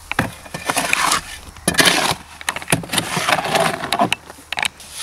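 Steel shovel scraping and scooping wet concrete in a wheelbarrow and tipping it into a wooden foundation form, in several separate scrapes with short knocks between them.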